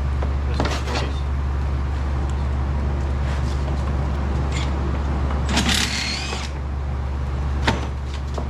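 Steady low hum with scattered clinks and knocks of tools and parts being handled during a teardown, and a longer clattering scrape about six seconds in.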